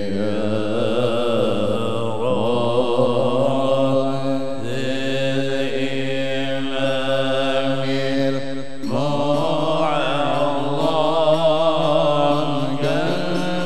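A man's solo voice chanting an Arabic maulid qasidah (devotional poem) into a microphone, with long held notes and wavering ornaments. A short break about nine seconds in before he starts the next phrase.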